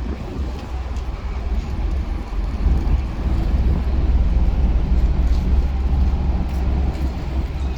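Passing cargo ship's engine: a steady low rumble that grows louder about two and a half seconds in.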